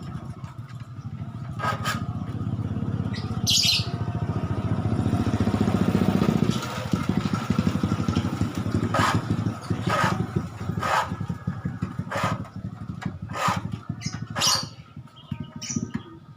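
A motorcycle engine runs steadily, swelling louder about four seconds in and then easing back. Several short rasping strokes, typical of a hand file drawn across saw teeth, come in the second half, and a bird chirps once early on.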